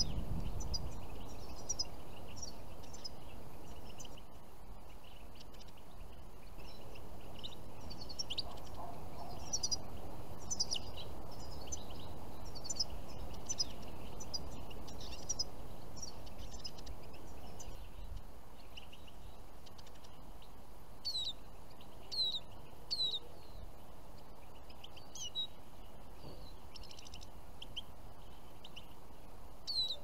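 European goldfinches calling with many short, high chirps, with a few clearer down-slurred calls about two-thirds of the way through, over a low background rumble that drops about halfway.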